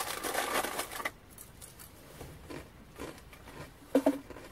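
Small cardboard cereal box and its paper inner bag rustling and crackling as they are handled, for about a second, then fainter handling noise. A brief voice-like sound near the end.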